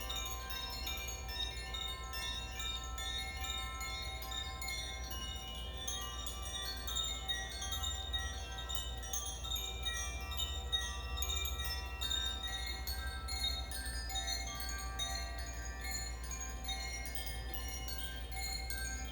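Koshi chimes being played: tuned rods struck by the clapper inside, many ringing notes overlapping in a continuous shimmer of bright tones, with new strikes throughout.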